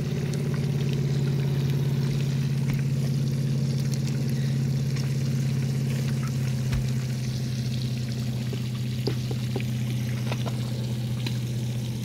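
A small pump humming steadily while water pours and trickles, with faint scattered ticks over it.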